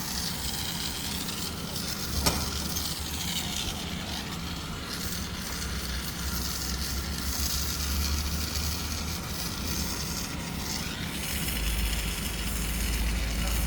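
Electric arc welding on galvanized steel: a steady crackling sizzle, with a low hum underneath and one sharp click about two seconds in.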